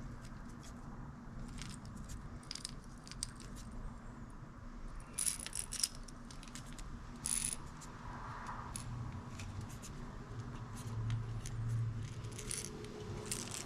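Small metallic clicks and light rattles of fishing lures and their hooks being handled, with a few louder clicks near the middle, over a steady low hum.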